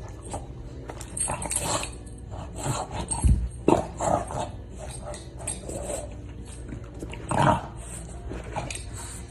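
A dog making a run of short, irregular vocal sounds, loudest about three and a half and seven and a half seconds in, with a dull low thump about three seconds in.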